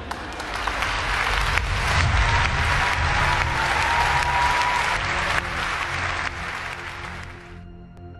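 Audience applauding over soft background music; the applause fades out near the end, leaving only the music.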